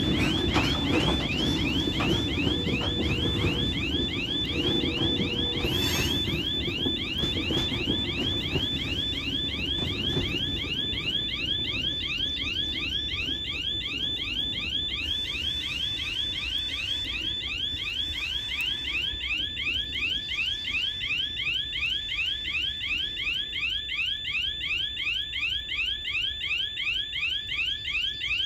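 Level-crossing warning signal sounding a repeating rising electronic chirp, about three a second. For the first ten seconds or so, freight wagons rumble over the crossing, then fade away.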